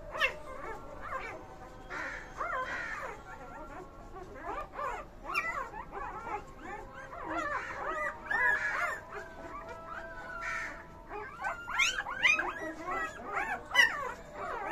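Litter of newborn puppies whimpering and squeaking, many short high cries overlapping, growing denser and louder in the last few seconds.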